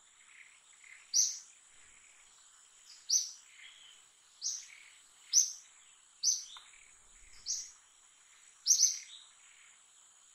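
A bird calling with short, sharp, high chirps about once a second, over a steady high-pitched hum.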